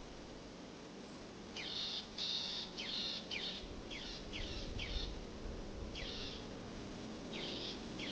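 A bird chirping over and over, about ten short calls, each sweeping sharply up in pitch, beginning about a second and a half in, over a faint steady background hiss.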